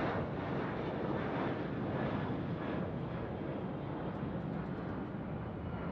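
Steady jet aircraft noise, an even rushing hum with no distinct events.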